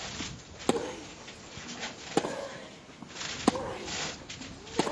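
Tennis rally on a grass court: rackets striking the ball four times, about one and a half seconds apart, each shot followed by a short grunt from the player.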